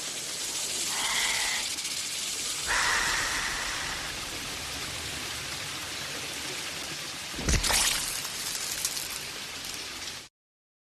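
Steady rain falling, with one brief louder burst about seven and a half seconds in. The sound cuts off suddenly just before the end.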